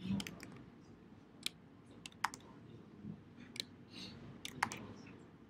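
Scattered, faint computer keystrokes and clicks, a sharp tap every second or so, made while editing code.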